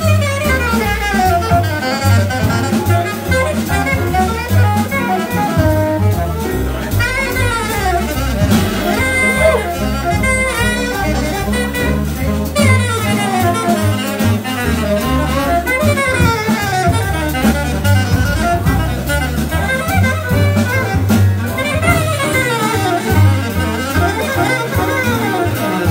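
Live jazz: several saxophones play fast, overlapping runs that sweep up and down, over a double bass and drums.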